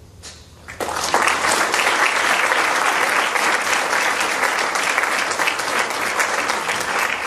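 Audience applauding, starting suddenly about a second in and then keeping up a steady, dense clapping.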